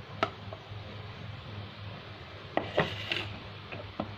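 A spoon knocking and scraping against a plastic food processor bowl: a few sharp clicks, the loudest near three seconds in, with a short scrape just after, over a low steady hum.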